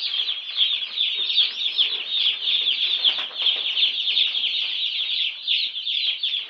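A flock of day-old Cobb 500 broiler chicks peeping continuously, many high-pitched peeps overlapping, each one falling in pitch.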